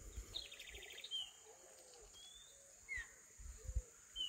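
Faint wild birdsong: several short whistled chirps, one sliding downward, and a brief rapid trill about half a second in. A steady high whine and a few soft low thumps sit underneath.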